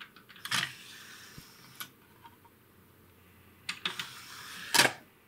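Realistic CD-2400 CD player's disc tray loading mechanism: a faint motor whir with a series of plastic clicks, ending in a louder clunk near the end as the tray closes and the disc is clamped. This is the tray now loading properly after its repair.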